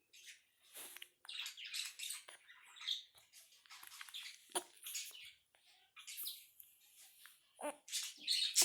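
Hiccups: short squeaky hic sounds several times, the clearest about halfway through and twice near the end, with soft rustling between them.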